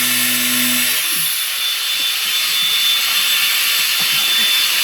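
Angle grinder running with its disc cutting through a cardboard box: a loud, steady gritty noise with a thin high whine, and a lower hum that drops out about a second in.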